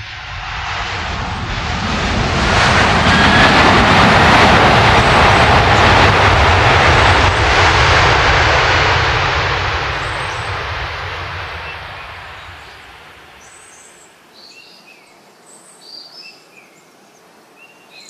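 An aircraft passing overhead: a loud rushing engine noise with a deep rumble that swells over the first few seconds, holds, then fades away over several seconds. Birds chirp briefly once it has died down.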